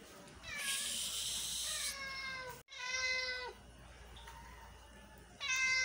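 A cat meowing three times: a long drawn-out meow, a shorter one after about a second's pause, and a brief third one near the end.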